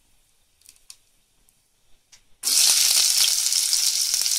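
Sliced onions dropped into hot oil in a pan: about halfway through, a loud sizzling starts suddenly and keeps going, after a few faint ticks.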